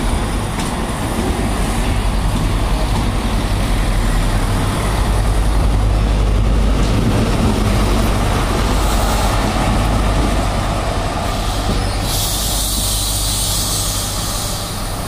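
Class 43 HST power car's diesel engine running as the train draws slowly into the platform, a steady low drone with wheel and rail rumble. From about twelve seconds in until near the end a loud hiss of air joins it.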